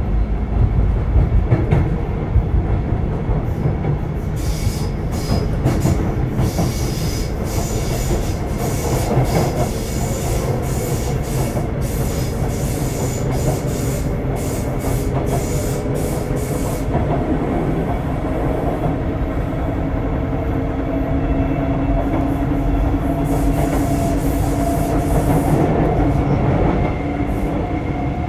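Sotetsu 8000 series electric train heard from inside the car while running: a steady low rumble of wheels on rail, with a patch of sharp clicks in the middle. From about halfway through, a steady hum from the Hitachi IGBT-VVVF inverter and traction motors joins in.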